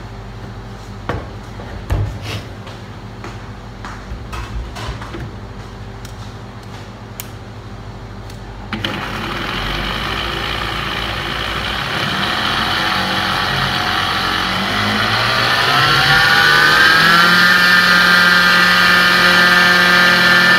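A few knocks and clicks. Then, about nine seconds in, an electric blender motor switches on suddenly. Its whine rises in pitch over several seconds as it comes up to speed, then holds steady.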